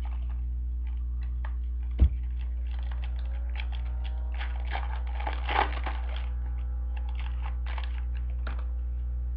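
Trading card packs and cards being handled: scattered small crinkles and clicks, a sharp knock about two seconds in and a busier rustle around the middle, over a steady electrical hum.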